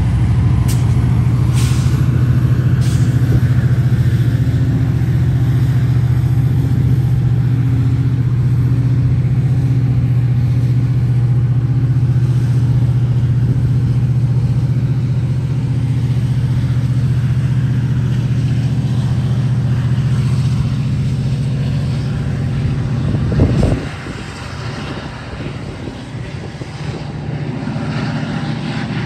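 Metra MP36PH-3S diesel-electric locomotive engine running close by with a steady low drone, with a few sharp clicks in the first few seconds. About 23 seconds in there is a short loud burst, after which the engine is quieter, and it rises again near the end as the locomotive throttles up, puffing black exhaust.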